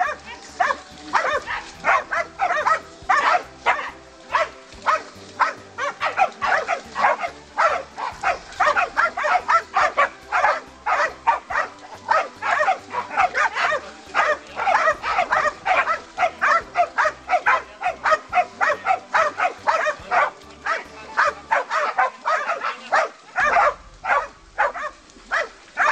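A pack of hunting dogs barking fast and without a break, several barks a second from more than one dog, as they bay a wild boar at close quarters.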